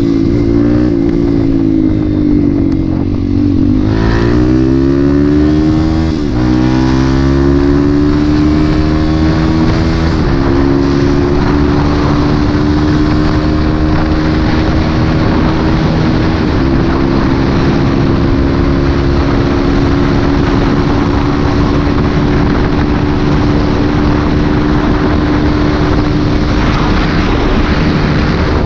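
Motorcycle engine under way. Its pitch dips about three seconds in, then climbs through a couple of gear changes and settles into a steady cruise, with wind noise throughout.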